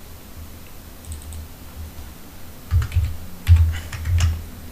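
Computer keyboard keys tapped in a quick run of about five or six strokes, starting a little under three seconds in, typing a value into a CAD dimension box.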